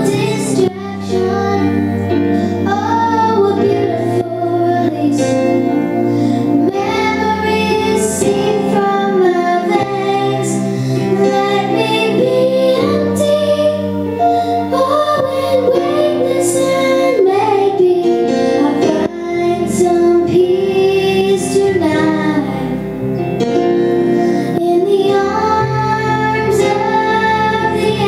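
A young girl singing a slow song into a microphone, her held and gliding notes over steady instrumental accompaniment.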